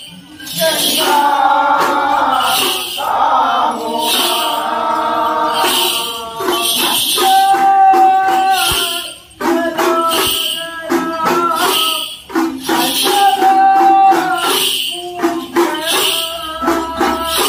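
Devotional group song: men singing to udukku hourglass drums and small hand cymbals, with a metallic cymbal stroke about once a second.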